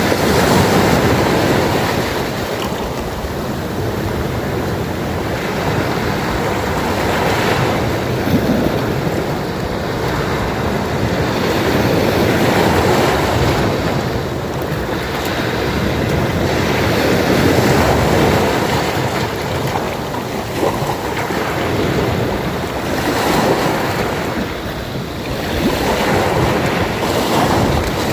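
Sea waves washing onto the shore, a steady rushing surf that swells and eases every four to five seconds.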